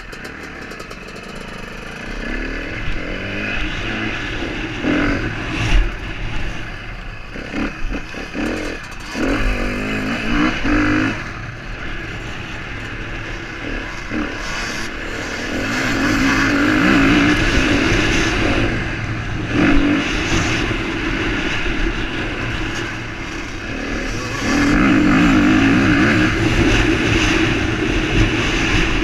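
KTM motocross bike's engine, recorded on the rider's helmet, revving up and down as it is ridden round a dirt track, with long pulls at high revs mid-way and near the end. Knocks and clatter from the bike over rough ground come in the first third.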